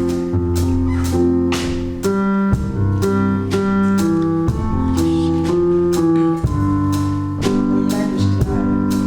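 Band playing an instrumental passage with no singing: held keyboard chords over a bass line, changing every second or two, with evenly spaced percussive hits about twice a second.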